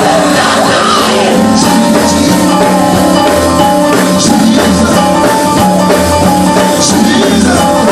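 Loud live gospel music: a band with drums playing steadily under singing.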